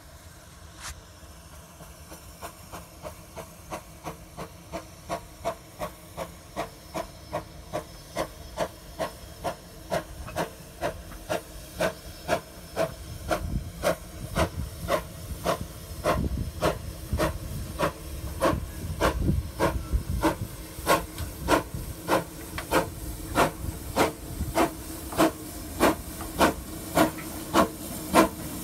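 A 1930 Baldwin 4-6-2 narrow-gauge steam locomotive approaching under steam, its exhaust chuffing in an even beat of about two chuffs a second. The chuffs grow steadily louder as it nears, and a low rumble builds in the second half.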